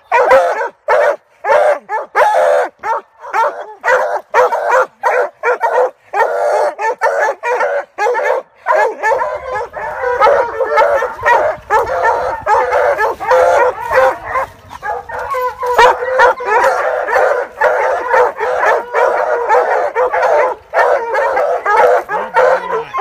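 A pack of coonhounds, black and tan pups together with older Walker hounds, barking treed at a tree in a dense, overlapping chorus of rapid barks with some howling. This is treeing: the dogs are announcing a raccoon up the tree.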